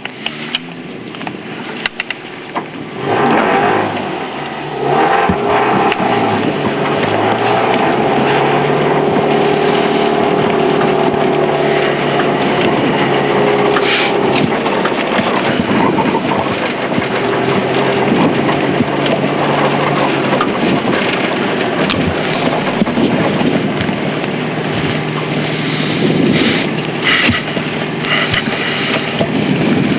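N4-class rally car's engine heard from inside the cabin, running at low revs while the car rolls slowly toward the stage start; it picks up a little about three seconds in, then holds a steady drone, with a few short knocks along the way.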